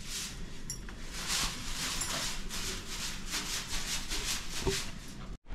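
Long-handled broom swished in repeated strokes against a wall and ledge, about three strokes a second, dusting them down. It cuts off suddenly near the end.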